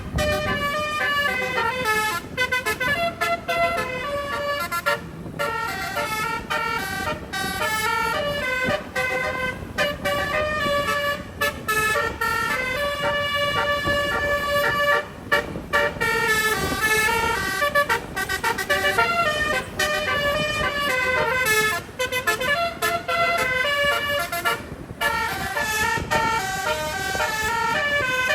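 A bus's 12-note, 24-trumpet stereo telolet horn playing a long running melody, its notes changing every quarter to half second with several pitches sounding together and a few brief pauses, over road and engine rumble.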